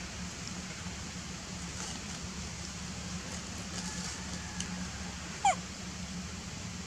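A single short, high squeal from a macaque, falling steeply in pitch, about five and a half seconds in. It rises over a steady low hum of background ambience.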